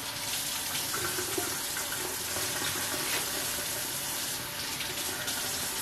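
Plastic produce bag of kale and spinach crinkling and rustling as handfuls of greens are pulled out, a steady hiss with faint crackles.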